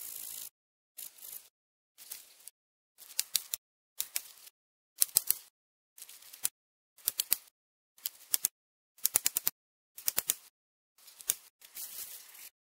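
Snapping twigs, cracking branches and crunching dry leaves as a felled sapling is stomped on and pulled through the brush. The sound comes in choppy half-second pieces about once a second, with dead silence between.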